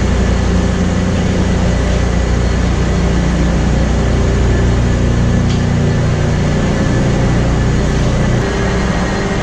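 Engine-room noise of a Wärtsilä RT-flex82T seven-cylinder, low-speed two-stroke marine diesel main engine running at sea: a loud, steady drone.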